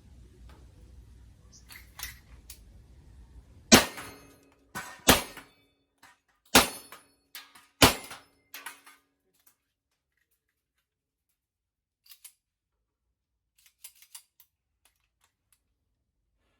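Four shots from a .45 1911 pistol, about a second and a half apart, each trailing off briefly, followed by a few faint clicks.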